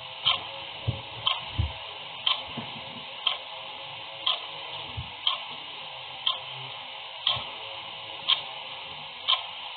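Clock ticking steadily, about one tick a second, over a faint steady hiss.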